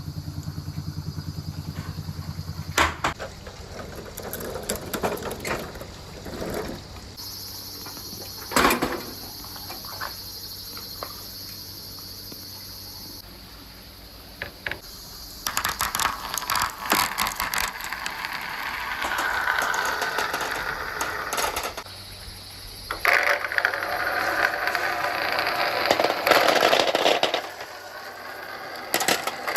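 Marbles rolling and clattering along a marble run, with sharp clicks as they strike the track. A steady rapid buzz fills the first few seconds, and from about halfway through a denser, continuous rolling rattle takes over.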